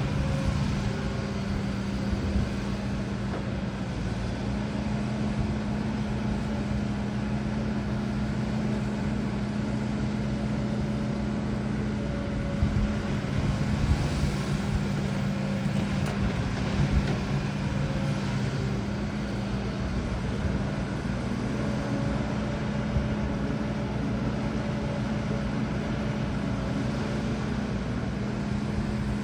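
HIDROMEK HMK230LC excavator's diesel engine running steadily, with a few short knocks and clanks near the middle and one near the end.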